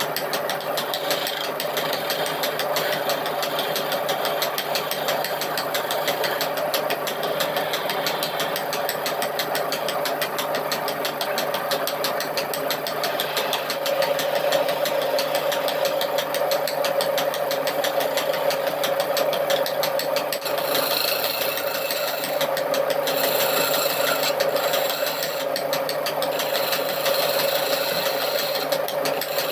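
Handheld electric power tool running steadily against wood, a constant motor tone with a fast rattle. The high-pitched part of the sound shifts about two-thirds of the way through.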